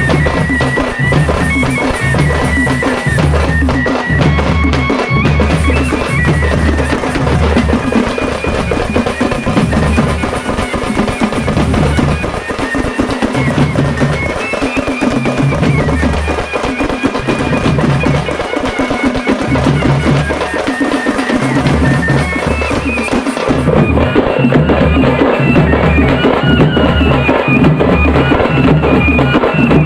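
Music with a steady, heavy drum beat under a high melody line.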